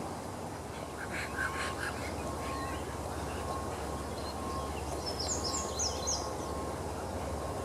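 Outdoor ambience of birds calling over a steady low rumble: a few harsh calls about a second in, then a quick run of high chirps around five seconds in.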